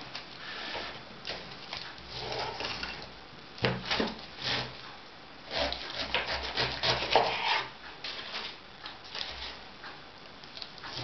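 Kitchen knife sawing through a pineapple's tough, scaly rind on a wooden cutting board, in irregular strokes with a few knocks of the fruit and blade against the board.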